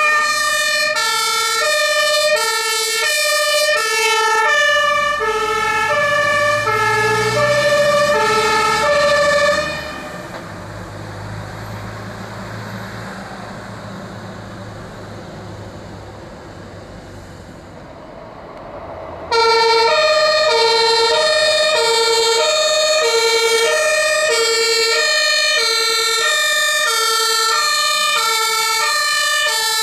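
German fire-engine two-tone siren (Martinshorn) sounding its alternating high and low notes. About ten seconds in the siren stops and a truck's diesel engine is heard pulling away. About 19 seconds in the two-tone siren comes back suddenly at full loudness.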